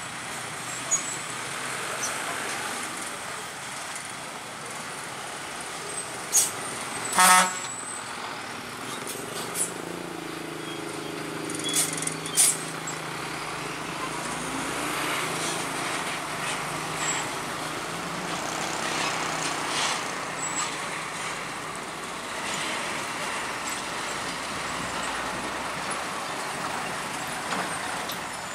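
Road traffic at a railway level crossing: diesel trucks and cars rolling slowly over the rails with their engines running, and a truck's engine humming steadily through the middle. A short horn toot comes about seven seconds in, and there are a few sharp knocks around that time and again a few seconds later.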